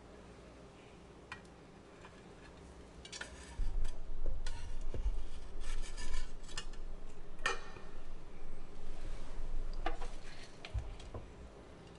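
A fork and metal spatula scraping and clinking against a foil-lined baking tray and a ceramic platter as a roasted fish head is lifted across. It starts with a single click, then a run of clatter and low knocks begins about three and a half seconds in, with one sharp clink in the middle, and dies away near the end.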